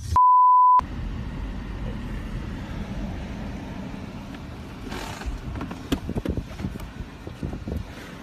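A steady censor bleep about half a second long just after the start, then the low rumble of a car driving slowly, heard from inside the car, with a few clicks and knocks.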